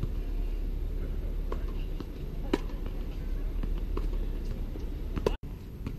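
Tennis rally on a hard court: two sharp racket-on-ball hits about three seconds apart, with fainter ticks of ball bounces and footsteps between them, over a steady low rumble. The sound drops out for an instant near the end.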